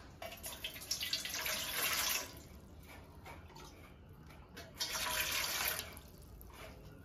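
Water poured from a plastic mug into a stainless steel bowl, in two pours: one of about two seconds near the start and a shorter one about five seconds in.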